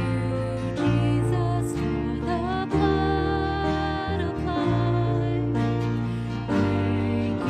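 Worship music played by a band with guitar, over held bass notes that change every second or two.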